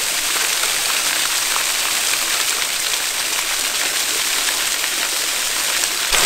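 Small waterfall splashing down a rock face onto stone, a steady hiss of falling water.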